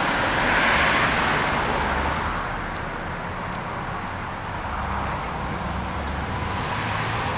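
Steady rushing outdoor background noise, swelling about a second in and easing a little after a couple of seconds.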